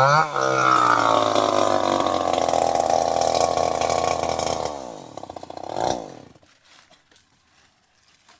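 Two-stroke chainsaw engine running at a steady high speed. About five seconds in it winds down in pitch, gives one brief surge and stops, leaving only faint clicks.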